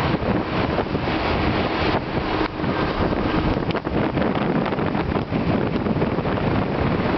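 Wind buffeting the microphone of a camera filming from a moving vehicle at road speed, over steady traffic and tyre noise.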